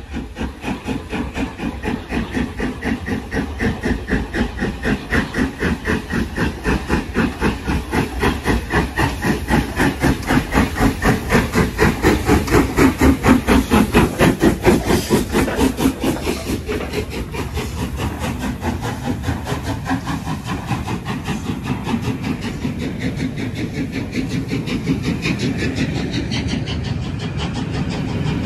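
LMS Royal Scot class three-cylinder 4-6-0 steam locomotive 46100 'Royal Scot' working through the station, its exhaust beating rapidly and evenly. The beats grow louder to a peak as the engine passes about halfway through, then give way to the rumble of the coaches rolling past.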